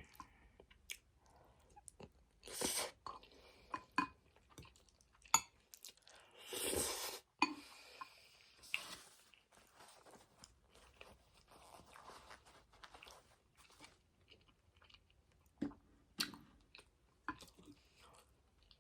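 Close-up chewing and wet mouth sounds of someone eating sauced angel hair spaghetti: a run of small clicks and smacks, with two louder, longer noisy stretches, a short one about three seconds in and a longer one around seven seconds.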